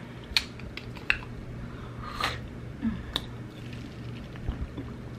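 Plastic water bottle handled and opened: a few sharp clicks and crackles as the screw cap is twisted off, then sips from the bottle with soft thuds near the end.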